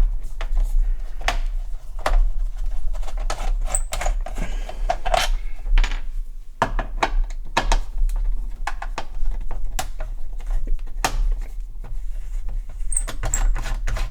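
Screwdriver working screws out of a Sinclair QL's plastic case, with irregular small clicks and taps of the screws and case being handled on the bench, over a steady low hum.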